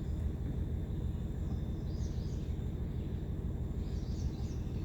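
Outdoor background noise: a steady low rumble, with a few faint bird chirps about two seconds in and again near the end.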